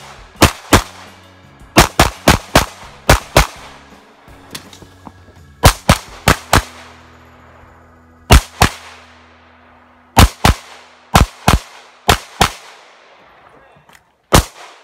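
Pistol shots in rapid pairs from an Open-division competition handgun during a timed stage, about twenty shots in all. Each pair is a fraction of a second apart, with pauses of about half a second to two seconds between pairs while the shooter moves to new targets. Each shot rings briefly.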